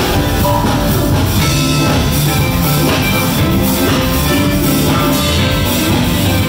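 A live band jamming: loud rock music with a strong bass line and drums.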